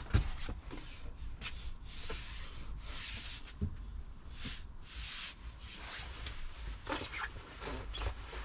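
Soft rubbing and brushing as a hand moves over the rock-and-roll bed's seat back and steel base frame: several swishing strokes with a few light knocks.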